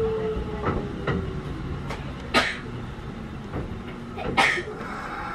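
Interior running sound of a Kintetsu 1201 series electric train slowing for a station: the traction motor tone falls in pitch and fades over the first half-second, leaving a low rumble that gradually quietens. Faint knocks and two short, louder noise bursts about two seconds apart come over it.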